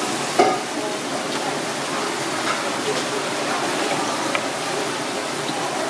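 Steady rush of running water, with a sharp knock about half a second in and a few light clicks as sea urchin shells are handled.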